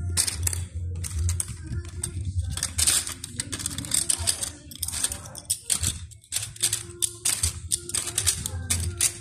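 Small green circuit boards clattering against one another and against a plastic tub as a hand rummages through them: a dense, irregular run of light clicks and rattles over a low steady hum.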